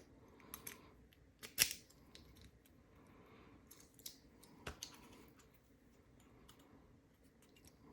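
Small metal clicks and taps from handling a Union padlock and its parts while the lock is being gutted with a follower, with a sharper click about one and a half seconds in and another near five seconds.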